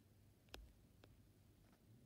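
Near silence, with faint clicks about half a second and a second in.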